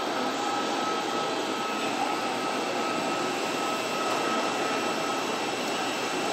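A parked airliner's auxiliary power unit running: a steady rushing whine with a few fixed high tones.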